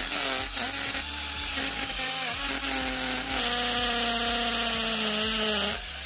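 Electric drill running steadily under load while boring holes in PVC for a switch and an indicator light. Its whine sags a little in pitch about three seconds in and eases slightly just before the end.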